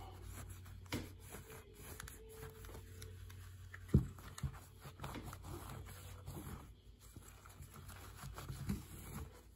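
Microfiber cloth rubbing and wiping over a red tail light lens, taking off the excess polishing compound, in a run of faint scrubbing strokes. A short knock sounds about four seconds in, with smaller ones about a second in and near the end.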